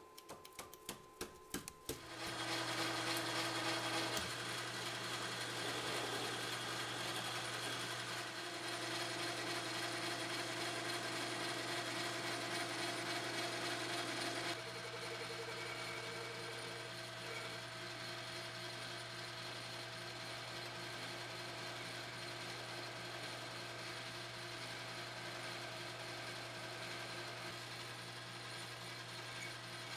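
A quick run of clicks, then a metal lathe starts about two seconds in and runs with a steady hum, turning a small steel part held in a collet chuck. About halfway through, the sound drops slightly.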